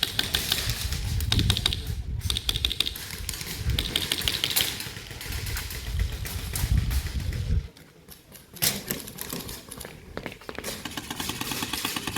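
Airsoft guns firing in rapid bursts of clicks, with a low rumble under them that stops suddenly about eight seconds in.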